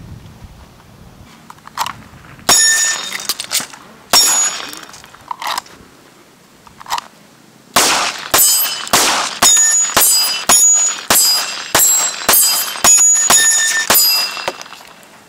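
Handgun fired outdoors: two single shots a couple of seconds in, then a string of about ten quick shots roughly half a second apart from about eight seconds in. Many of the shots are followed by a short ringing tone.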